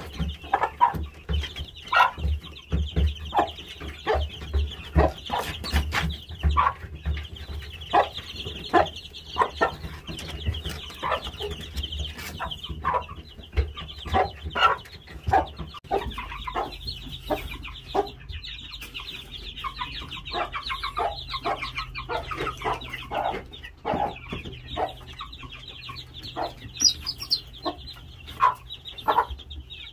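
Gamefowl chickens clucking in short, sharp calls, several a second, over a steady high-pitched trill; a low steady hum joins about halfway through.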